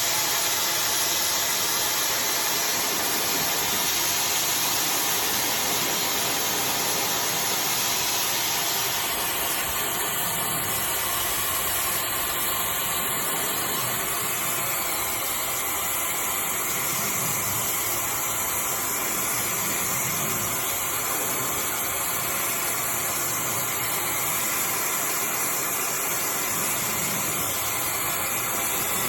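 iDryer AI Pro Style hair dryer blowing steadily on hair, a continuous rush of air and motor noise; the higher part of the hiss changes a little about nine seconds in as the dryer is moved.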